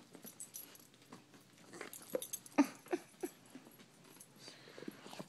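A dog whining in a string of short whimpers, several in quick succession between about two and three and a half seconds in, begging for a carrot.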